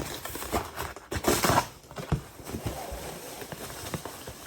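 Cardboard box being pulled and torn open by hand: irregular rustling, crackling and knocks, with a louder tearing rasp about a second in.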